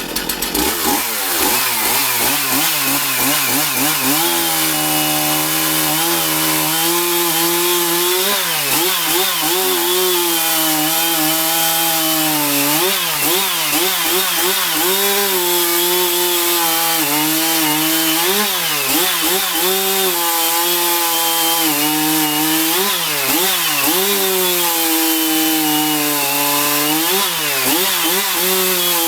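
Stihl MS 270 two-stroke chainsaw revving up about a second in and then running at high revs, its pitch repeatedly dipping and recovering as the chain is loaded, typical of cutting wood.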